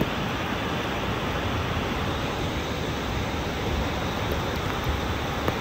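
Fast-moving floodwater rushing in a torrent, a steady even noise with no breaks.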